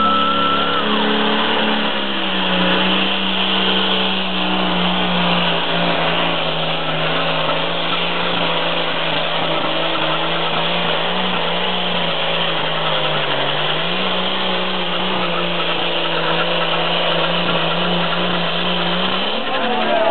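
Lamborghini "Squalo" pulling tractor's engine running flat out through a pull, a loud steady drone that sags a little in pitch about two seconds in, dips briefly again around thirteen seconds, and climbs near the end.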